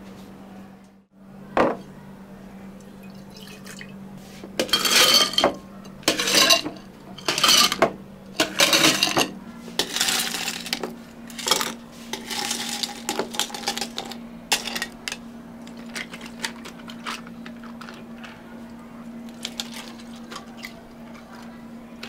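Cafe drink preparation: cups, utensils and containers clattering and scraping. There are four loud short bursts in the first half, then lighter scraping and scattered taps, over a steady low machine hum.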